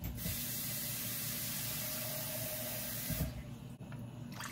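Kitchen tap running in a steady hiss for about three seconds, drawing more water to top up the soup, then shut off with a light knock.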